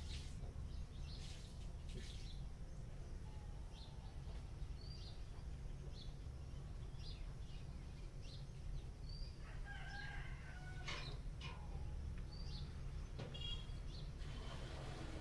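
Birds chirping off and on over a steady low hum, with a longer, lower call about ten seconds in and a quick trill a few seconds later.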